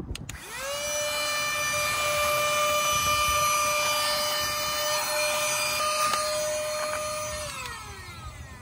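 Small handheld vacuum cleaner running: its motor spins up to a steady high whine about half a second in, holds, and winds down near the end.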